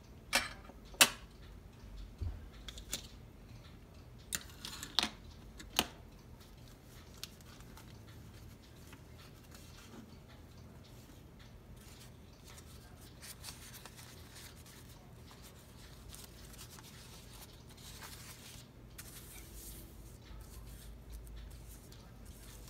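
Small tools and materials being handled on a workbench: seven sharp clicks and taps in the first six seconds, the loudest about a second in. Faint rustling and scratching follow.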